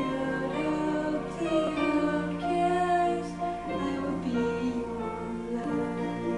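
A woman singing a slow, tender ballad over instrumental accompaniment, holding long notes.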